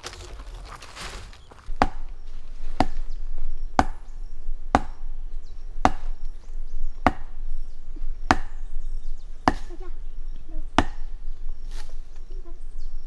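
Steady chopping: about ten sharp blows roughly a second apart, starting about a second and a half in, each with a short ring. Before the blows begin, there is a soft rustle of rope being handled.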